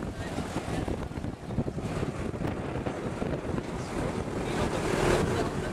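Wind buffeting the microphone outdoors: an uneven low rushing rumble that rises and falls.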